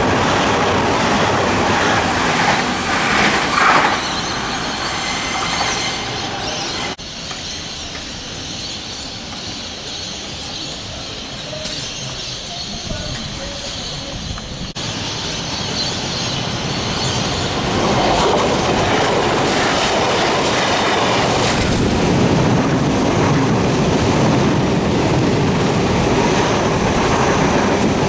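Sydney Trains double-deck electric trains passing close by at speed, wheels running over the rails. The sound drops abruptly to a quieter stretch about seven seconds in, then another train builds up about halfway through and passes loudly.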